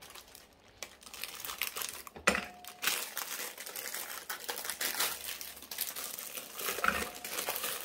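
Thin plastic biscuit wrapper crinkling as it is handled and pulled open, with a sharp knock about two seconds in and scattered small clicks.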